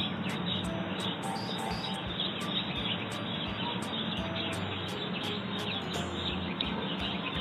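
Birds chirping in short, scattered calls over a steady outdoor hiss.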